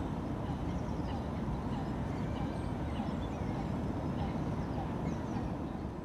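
Outdoor ambience: a steady low rumbling noise with faint, scattered bird chirps over it, fading out near the end.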